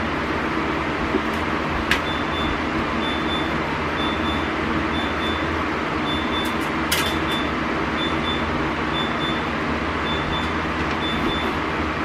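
French-door refrigerator's door-open alarm beeping: short, high, evenly spaced beeps at one pitch, about one and a half a second, starting about two seconds in. Under it runs a steady mechanical hum, with a couple of sharp clicks from the shelves being handled.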